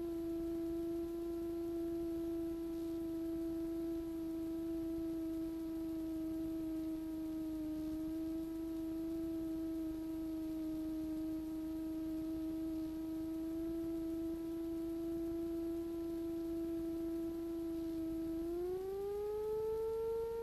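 Steady whine with overtones from the Piper PA-38 Tomahawk's engine at low power as the aircraft rolls out along the runway. It rises in pitch near the end as engine speed comes up.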